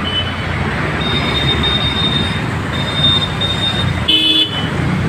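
Road traffic on a flooded street: a steady wash of engine and water noise, a thin high-pitched tone that sounds twice, and a short horn honk about four seconds in.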